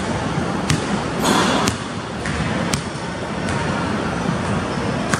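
Basketball bounced on a hardwood gym floor, a few single bounces about a second apart, over a steady hiss.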